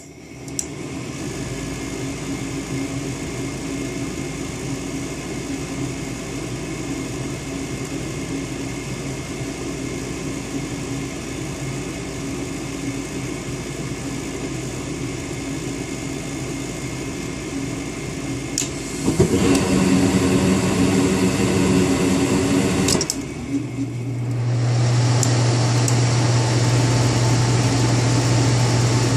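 Goodman furnace running with a steady mechanical hum. About two-thirds of the way through, a click is followed by a few seconds of louder rushing noise, which cuts off. A deeper, louder steady hum then sets in about a second later and holds.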